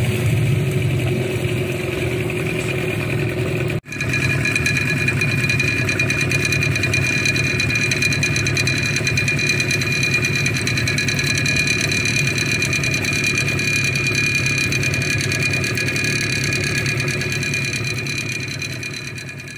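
A long boat's motor running steadily under way, a steady drone with a high whine over it. It breaks off for an instant about four seconds in, then runs on and fades away at the very end.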